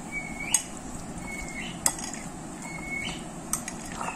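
Metal spoon stirring marinated chicken pieces in a glass bowl, with a sharp clink against the glass every second or so and short high squeaks in between.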